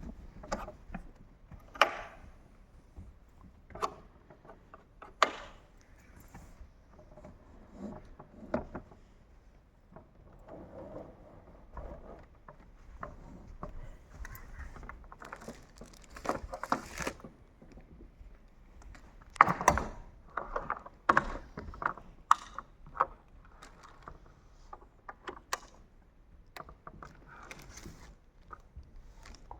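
Handling noise from unpacking a lighting console: irregular clicks, knocks and scraping rustles as its dust cover and packaging are taken off, with a busier run of louder knocks past the middle.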